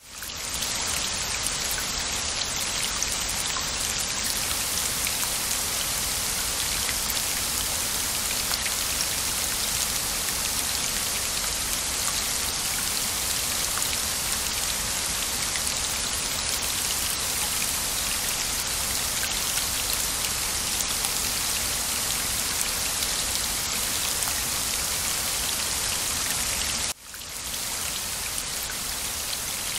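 Steady rain patter, an even hiss flecked with tiny drop ticks. It cuts out briefly near the end and comes straight back.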